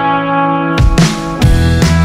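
Background music: a held guitar chord rings out, then a drum kit comes in with a steady beat a little under a second in.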